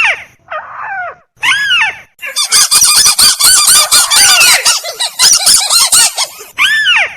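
Lure recording of tikusan (crake) calls. Single rising-then-falling calls come about once a second. From about two seconds in, a dense burst of many overlapping rapid calls runs for roughly four and a half seconds, and then single calls resume.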